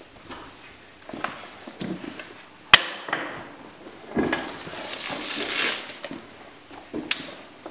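Horse being saddled: a sharp metallic clank about three seconds in, then the clinking and jingling of stirrup irons and buckles with the rustle of the leather saddle and pad as the saddle is set on the horse's back, and a few smaller knocks.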